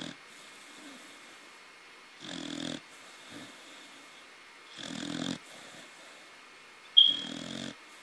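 Young corgi snoring in its sleep: three short snores about two and a half seconds apart. The last and loudest opens with a sharp, high whistle.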